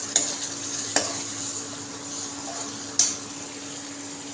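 Metal ladle stirring a masala gravy that is frying and sizzling in a metal kadai, with sharp clinks of the ladle against the pan near the start, about a second in and, loudest, about three seconds in.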